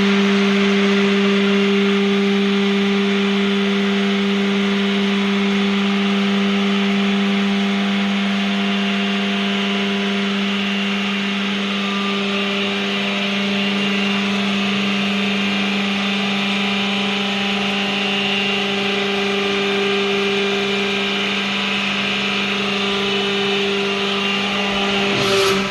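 Vertical baler's hydraulic power unit running, a steady hum with a constant pitch.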